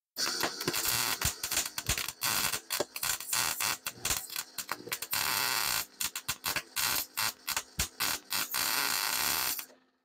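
MIG welding arc crackling as a bead is laid on steel. It runs as one long burn that stutters into many short stops and starts in the second half, then cuts off sharply just before the end.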